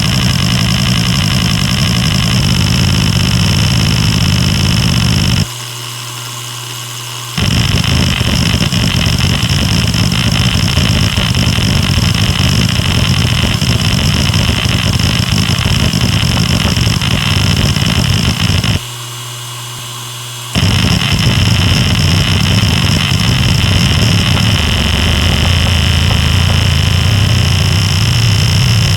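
Maxtor DiamondMax 10 6V300F0 hard drive working its heads in a dense, continuous buzzing chatter of rapid seeks over the steady spindle whine. The seeking stops twice for about two seconds, about five seconds in and again near two-thirds of the way through, leaving only the spinning drive's steady hum and whine.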